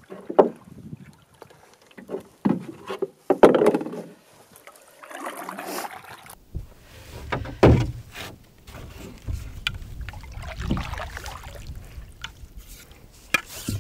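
Paddling a wooden cedar-strip solo canoe: separate paddle strokes swishing through the water, with a few sharp wooden knocks. About halfway through a low rumble comes in under the strokes.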